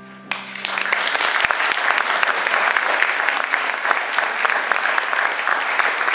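Audience applause breaking out as the last piano chord dies away. It starts about a third of a second in, builds within a second to full clapping and holds steady.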